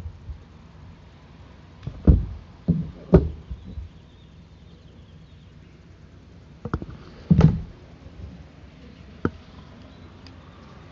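Handling noise: a few short knocks and thumps from hands working with recording gear close to the microphone, bunched about two to three seconds in and again around seven seconds, while a battery problem is dealt with.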